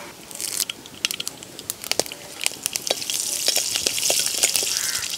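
Tempering spices in hot oil: mustard seeds popping with sharp crackles, then a stronger sizzle from about three seconds in as fresh curry leaves go into the oil and are stirred with a steel spoon.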